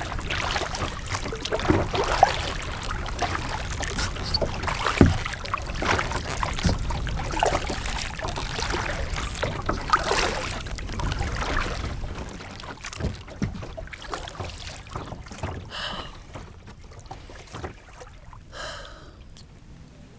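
Kayak paddling: the paddle blades dipping and splashing into the water stroke after stroke, with drips off the blades. The splashing eases off and grows quieter about twelve seconds in.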